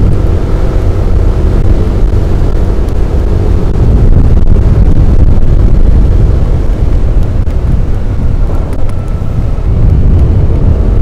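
Wind rushing over the microphone of a Yamaha Aerox 155 scooter on the move, with its single-cylinder engine humming steadily underneath.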